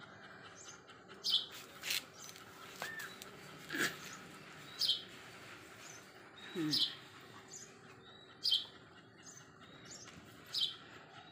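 Young chicken chicks peeping: single high, falling peeps repeating about every one to two seconds.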